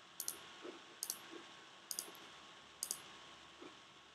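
Faint computer mouse button clicks, five of them about a second apart, each a quick press-and-release double tick.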